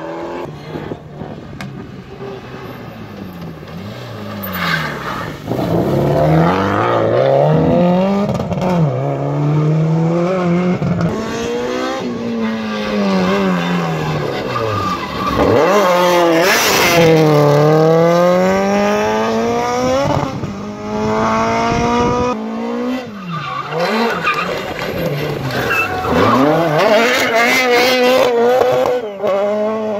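Rally car engine revving hard, its pitch climbing and dropping again and again as it accelerates and lifts. About halfway through there is a sharp lift-off and the engine climbs again.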